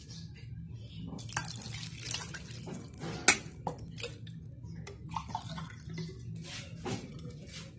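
Water poured from a glass into a metal pot of rice, with a spatula scraping and clinking against the pot and one sharp clack about three seconds in.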